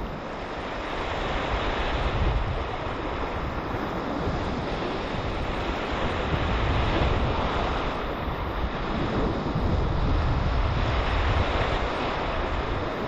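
Small waves breaking and washing over the shallows, with wind buffeting the microphone in a low rumble that swells and eases a few times.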